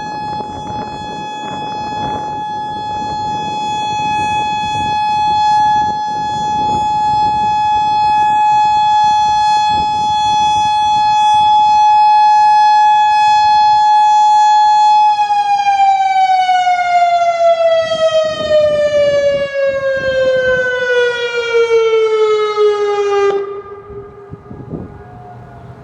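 Federal Signal Modulator 6048 electronic outdoor warning siren sounding its alert as one steady tone. About fifteen seconds in, the tone glides steadily down in pitch in a wind-down and cuts off near the end. Wind buffets the microphone throughout.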